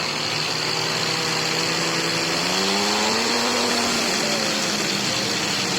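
Electric power tool motor running through a homemade speed controller made from a drill trigger switch. Its pitch rises and falls back about two to four seconds in as the speed is varied, over a steady high whine.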